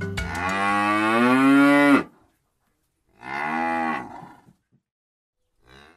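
Cow mooing twice. The first moo is long, about two seconds, and rises in pitch. A shorter moo follows about three seconds in.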